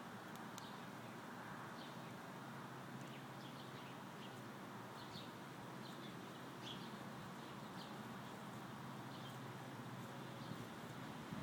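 Faint outdoor ambience: a steady low hum with scattered brief bird chirps.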